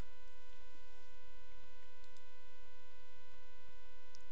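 Steady electrical hum on the recording: a constant high tone with several overtones that holds at an even level, with a few faint ticks.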